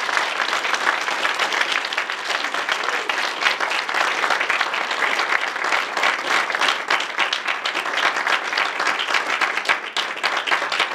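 Audience applauding: many hands clapping in dense, steady applause.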